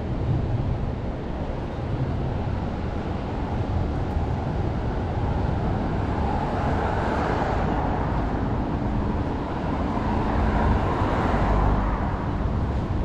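Road traffic on a street, with a steady rumble and two cars passing, one swelling and fading about six seconds in and another shortly before the end.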